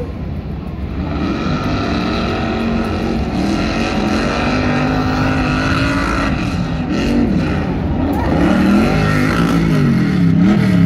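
Off-road truck engines revving hard as trucks race across loose sand. The engine note climbs, holds for a few seconds, then rises and falls several times as the throttle is worked.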